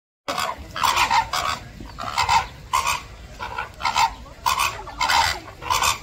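A flock of flamingos honking: loud, goose-like calls in quick succession, two or three a second, the group calling that goes with their marching courtship display.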